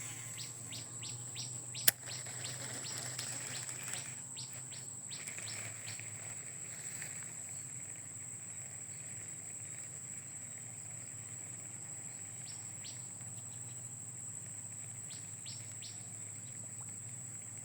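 Outdoor ambience of birds chirping in short rapid notes over a steady high-pitched insect drone, with a single sharp click about two seconds in.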